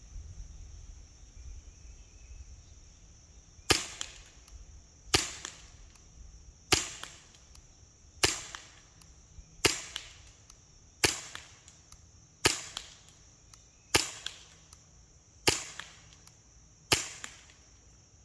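Umarex HK USP CO2 BB pistol firing ten shots, evenly paced about one and a half seconds apart, each a sharp pop that dies away quickly.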